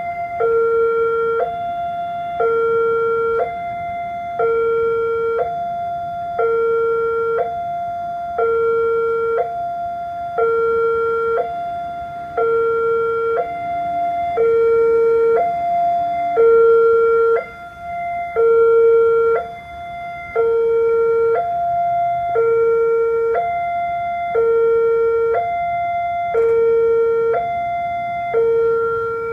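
Electronic two-tone railway level-crossing warning alarm, switching between a higher and a lower tone about once a second. It sounds while the red signal flashes and the barriers are down, warning that a train is approaching.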